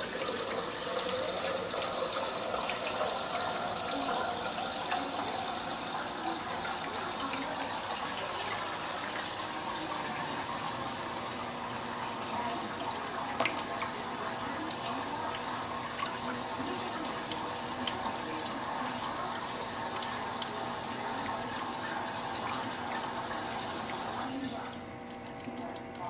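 Drinkwell pet fountain's stream of water splashing into its bowl as a cat drinks from and paws at the falling water, with a few small sharp splashes. The splashing turns quieter about a second and a half before the end.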